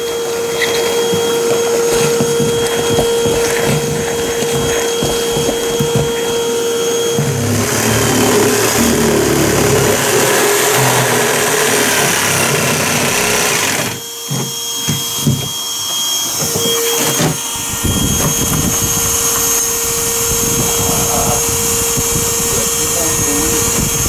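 Bee vacuum running with a steady whine, joined in the middle by a power saw cutting through the shed's plywood floor.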